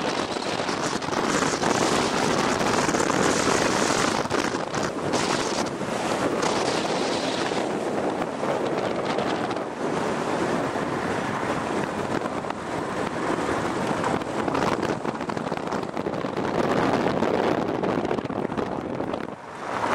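Wind rushing over the microphone of a camera filming from a moving car, mixed with steady road and tyre noise.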